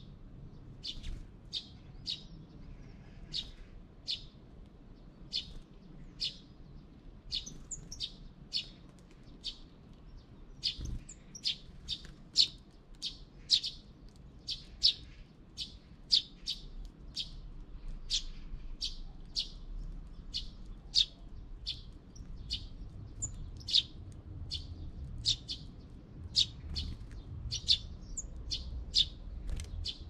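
Small birds chirping: short, high chirps one after another, about one or two a second.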